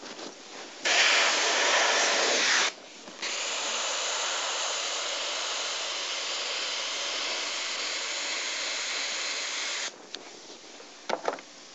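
Double-action airbrush spraying paint. A loud hiss of air lasts about two seconds and stops briefly, then a longer, slightly quieter steady hiss runs until it cuts off about ten seconds in.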